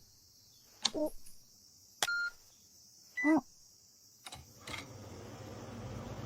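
A short electronic beep about two seconds in, then a short wobbling pitched sound, then from about four seconds in a steady air-conditioner hum and whoosh that comes on and slowly grows as the unit starts up.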